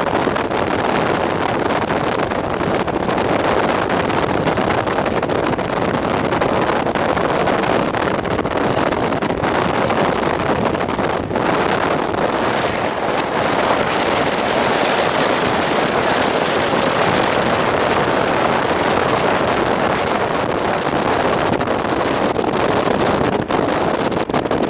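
Strong storm wind rushing steadily over the microphone, a loud even roar, with a brief higher hiss about halfway through.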